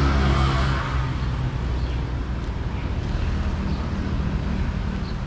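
A motor vehicle's engine running close by in street traffic, loudest over the first second or so, then settling into a steadier low rumble. A few faint short high chirps come near the end.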